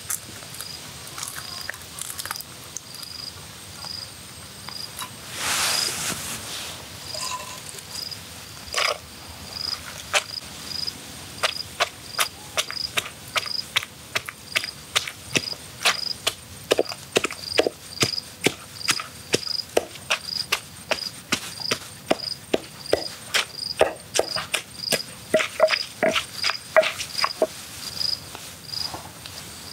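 A cricket chirping steadily, a short high chirp more than once a second, with a brief rush of noise about six seconds in. From about ten seconds in, a run of sharp knocks joins it, about two a second and growing louder and busier toward the end.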